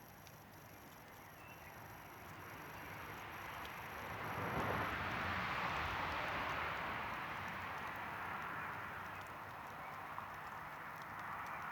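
Campfire burning with faint crackles, while a noisy rush swells over a few seconds, peaks about halfway, and slowly fades.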